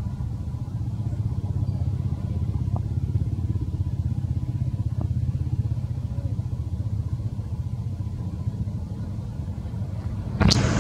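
A nearby engine idling steadily, a low even rumble. Near the end a sudden, louder rush of noise comes in.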